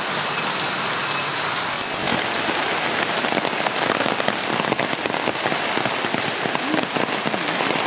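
Rain falling steadily in a dense patter of drops, which grows thicker and more crackly about three seconds in.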